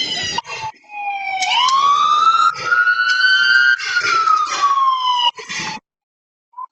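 Police car siren wailing in slow rising and falling sweeps. It cuts out briefly near the start and drops to near silence for under a second about six seconds in.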